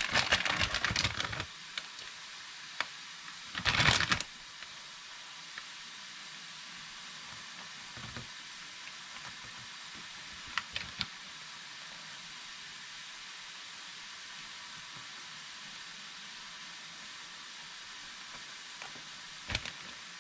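Steady sizzle of food frying in a pan. Bursts of rustling come in the first second and again about four seconds in, with a few light clicks later.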